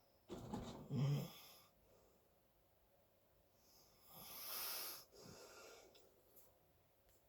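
A sleeper snoring: one loud, pitched snore about half a second in, then a quieter, airy breath around four to five seconds in.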